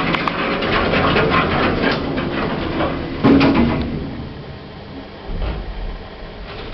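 Schindler lift in operation: a run of rattling clicks and knocks, with a sharp knock about three seconds in, then a low rumble starting about five seconds in.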